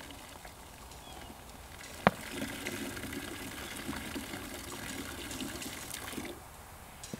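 Coke draining out of an upturned bottle swirled into a vortex, a steady pouring stream that fades out about six seconds in. A single sharp click about two seconds in.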